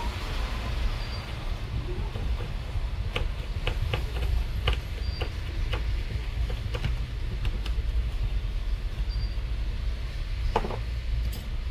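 Light clicks and taps of small parts and tools being handled, a quick run of them through the middle and one more near the end, over a steady low rumble.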